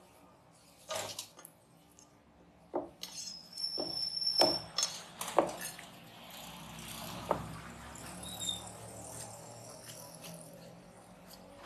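Large fish knife knocking on a wooden chopping block as a black pomfret is cut up: about six sharp knocks spread over the first seven seconds, then quieter.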